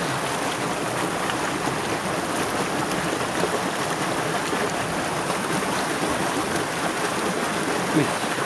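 Steady rushing of a shallow rocky stream flowing over stones.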